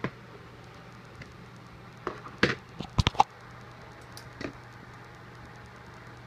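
A few short clicks and knocks, bunched together about two to three seconds in and one more a little later, over a steady low hum: light handling noise.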